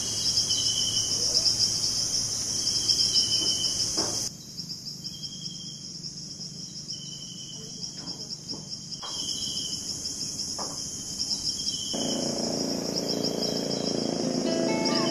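A steady, high, pulsing chorus of insects trilling, with shorter repeated calls over it, changing abruptly a few times. About twelve seconds in, the low drone of a small motorboat's engine joins it.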